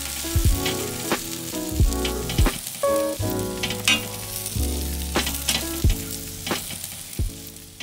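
Sliced jalapeños and white onion sizzling in oil on a hot griddle over charcoal, a steady frying hiss. Background music with a bass line and drum hits plays over it.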